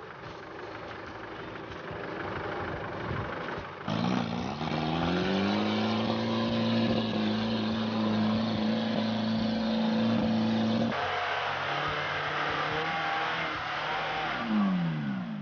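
Off-road 4x4 engines revving hard under load. About four seconds in, an engine's pitch climbs quickly and is held high and steady for several seconds. After a break, another engine's revs fall away sharply near the end.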